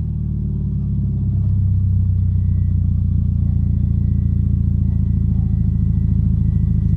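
Toyota GT86's flat-four boxer engine idling steadily through a Megan Racing aftermarket exhaust, growing slightly louder over the first two seconds and then holding even.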